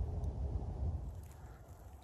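Faint low background rumble with a few soft clicks, dropping away about a second in.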